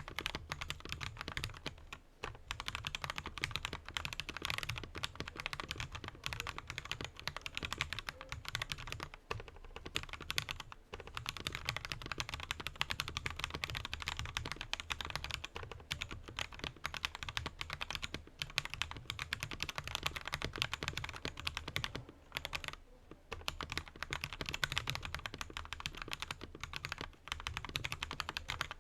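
Fast, continuous typing on a mechanical keyboard fitted with Akko Jelly Black linear switches and XDA-profile keycaps: a dense run of key clacks, broken by a few brief pauses.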